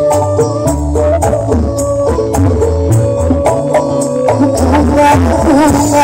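Loud music with a heavy, stepping bass line, a busy percussion beat and a melody over it; a wavering lead line comes in near the end.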